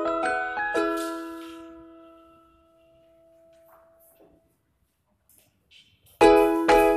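Background keyboard music with piano-like struck notes. The last notes ring out and fade to near silence about halfway through, and the tune starts again loudly about six seconds in.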